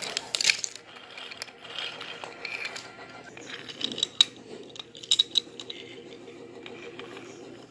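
Wooden toy trains clicking and clattering as they are handled and knocked together on wooden track. Sharp knocks come about half a second in, around four seconds in and just after five seconds in.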